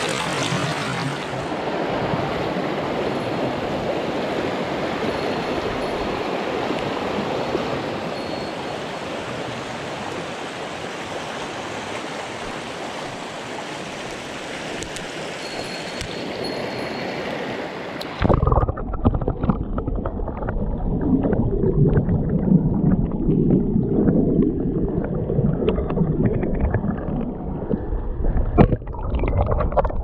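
Shallow mountain stream rushing over rocks, a steady hiss of running water. About 18 seconds in, the sound suddenly turns muffled, into low bubbling and gurgling with small clicks, as heard from under the water.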